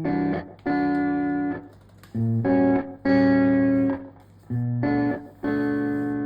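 Background music: instrumental chords held for about half a second to a second each, broken by short gaps, with no singing.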